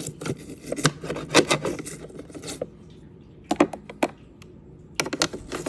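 Toothbrush scrubbing the crevices of a fridge's ice and water dispenser: a run of quick rubbing strokes that stops about two and a half seconds in, followed by a few scattered clicks and taps.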